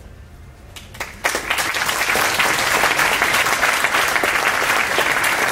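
An audience breaks into applause about a second in and keeps clapping steadily, the sound of many hands together.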